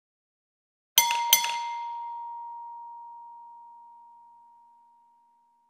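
Doorbell chime struck twice in quick succession, about a third of a second apart, leaving one ringing tone that slowly dies away over about four seconds.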